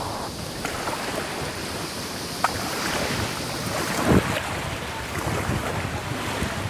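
Water lapping and splashing steadily, with many small splashes and one louder splash about four seconds in.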